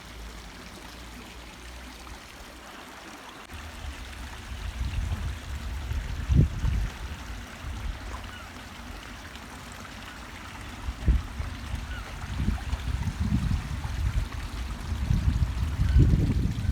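Wind buffeting the microphone in uneven gusts: a low rumble that starts a few seconds in and swells several times, over a faint steady outdoor hiss.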